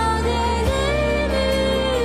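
Anime opening theme song: a sung melody with long held notes over steady instrumental backing.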